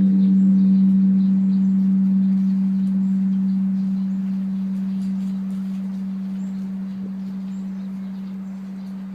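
Large bronze Korean Buddhist temple bell (beomjong) ringing on after a strike: one deep low hum that fades slowly, its higher overtones dying away within about the first second.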